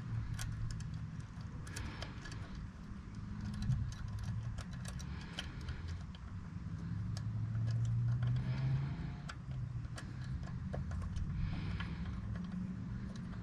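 Small socket ratchet clicking in short, irregular runs as bolts are worked on the engine, over a steady low hum.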